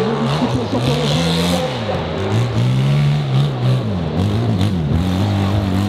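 Enduro motorcycle engine revving up and down as the throttle is worked, its pitch rising and falling several times, in quicker swings near the end.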